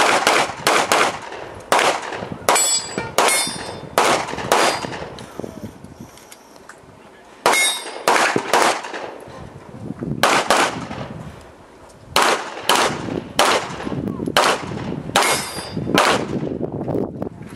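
Rapid pistol shots fired in quick strings, about two dozen in all, with pauses of a second or two between strings. A brief metallic ring follows a few of the shots.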